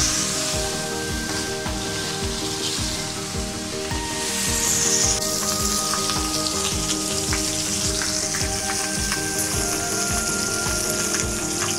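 Thick boneless ribeye steaks searing in hot olive oil in a cast iron pan, sizzling steadily; the sizzle flares up briefly about four and a half seconds in. Background music with a steady beat plays underneath.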